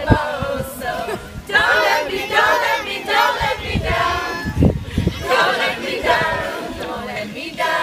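A group of adults and children singing together, many voices at once.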